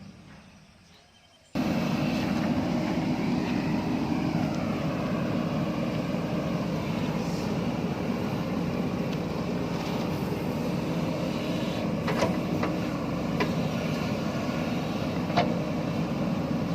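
JCB backhoe loader's diesel engine running steadily. It starts abruptly about a second and a half in, with a few short knocks near the end.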